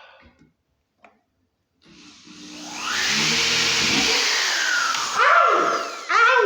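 A power tool runs loudly for a few seconds, then near the end the man lets out a short high-pitched yelp of pain as hot particles from the work fall on his chest.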